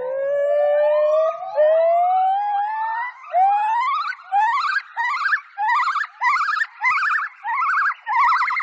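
A siren-like wail: one long tone rising slowly for about three seconds, then a string of short rising whoops about twice a second, turning into a fast warble near the end.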